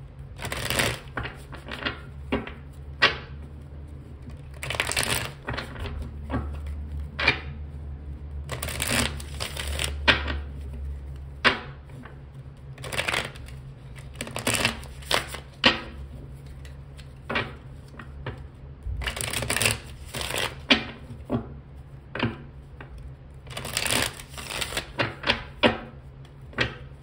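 A tarot deck being shuffled by hand: an irregular run of quick card slaps and riffles, in clusters with short pauses between them.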